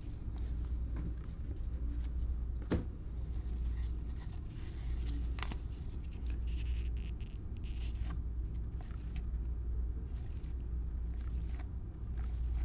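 Stack of trading cards being handled and flipped through in gloved hands: light rustles and soft clicks of card stock sliding against card, with a sharper click about 3 s in and again about 5.5 s in, over a steady low hum.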